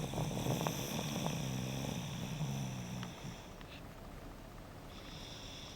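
A sleeping pet snoring: one long, low snore lasting about three seconds, then quieter breathing.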